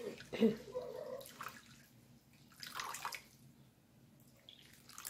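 Lukewarm water poured from a plastic jug into a well of flour in a bowl, splashing and trickling unevenly in a few spurts.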